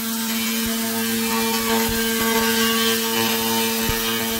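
2000 W handheld fiber laser cleaning head ablating rust from steel: a steady buzz with a hiss over it and a few faint ticks.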